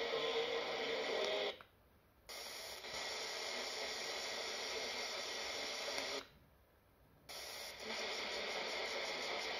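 Retekess TR102 pocket receiver on AM medium wave, its speaker giving hiss and static with weak station signals underneath. It goes silent twice, for under a second each time, as it is tuned up one channel step and then another.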